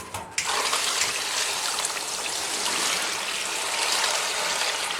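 Water pouring steadily into a large cooking pot of zongzi, a continuous rushing splash that starts about half a second in, filling the pot to boil the dumplings.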